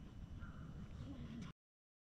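Faint outdoor ambience: a low rumble with a short bird call about half a second in. The sound cuts off suddenly about one and a half seconds in, leaving silence.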